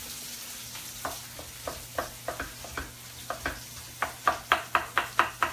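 Knife chopping on a cutting board, dicing grilled pineapple: a run of sharp strikes starts about a second in and grows quicker and louder.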